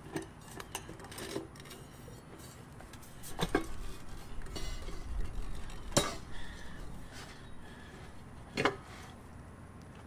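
Metal mounting hardware (bolts, washers and a metal bracket) clinking and knocking as it is handled and fitted together. There are several separate sharp clinks; the loudest come about three and a half and six seconds in.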